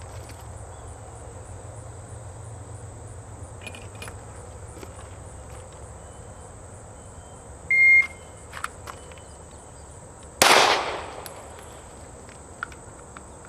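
A shot timer's start beep, then about two and three-quarter seconds later a single 9mm pistol shot from a Glock 43, drawn from a concealed-carry holster.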